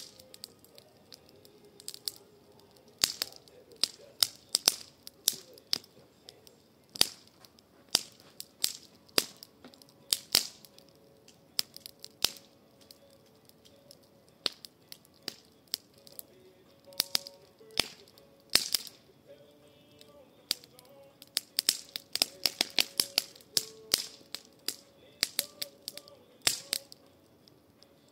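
Wood fire of branches and sticks crackling in a fire bowl, with irregular sharp pops, some coming in quick clusters.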